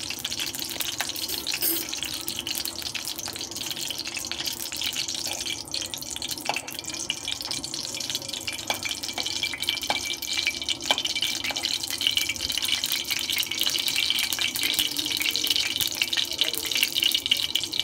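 Ghee melting and sizzling in a hot aluminium kadhai: a steady fizzing crackle that grows louder toward the end as the ghee heats up.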